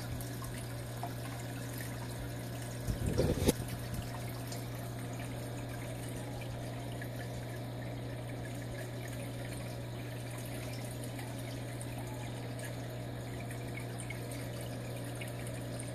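Aquarium pump and filter running: a steady low hum with water trickling into the tank. A brief knock about three seconds in.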